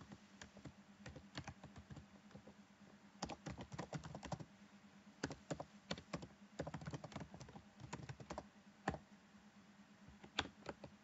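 Faint computer keyboard typing in short bursts of keystrokes, with a few single key clicks spaced out near the end.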